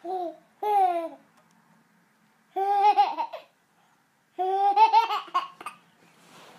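A baby laughing in four high-pitched bursts: two short ones in the first second, then two longer bouts, the last the longest.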